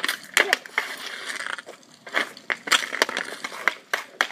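Hockey stick clacking and scraping against the ground and ball as a kid stickhandles: a string of sharp, irregular knocks.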